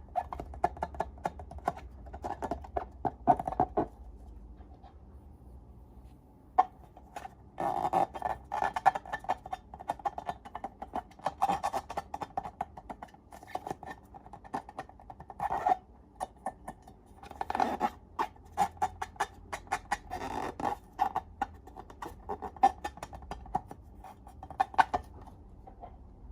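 Slime being squeezed and worked by hand, making sticky, irregular crackling and popping clicks in clusters, with brief lulls, over a low steady hum.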